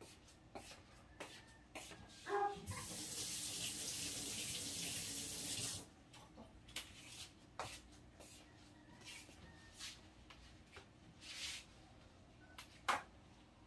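Water running from a tap for about three seconds, starting about two and a half seconds in and cut off sharply, with scattered light clicks and knocks around it.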